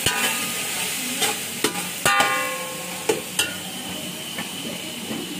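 Boiled beef frying in hot oil with onions and cumin, sizzling steadily, while a spoon stirs it and knocks against the pot a handful of times; one knock about two seconds in rings on briefly. A thin steady high tone comes in about three and a half seconds in.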